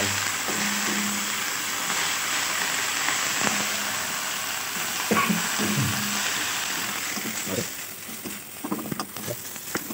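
Kelakai fern leaves sizzling as they are stir-fried in a steel wok and stirred with a spatula. The sizzle slowly dies down toward the end.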